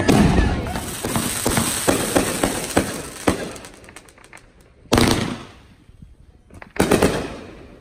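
Consumer fireworks going off: a quick run of crackling pops for the first few seconds, then two loud bangs about two seconds apart, each trailing off.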